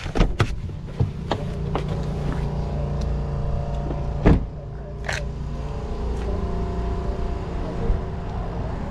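Hummer H3 engine idling steadily. Several sharp clicks of the door handle and latch come in the first two seconds, and a door shuts with a loud thud about four seconds in.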